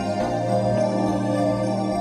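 Background music: slow, sustained new-age style chords over a held bass note that shifts to a new pitch a fraction of a second in.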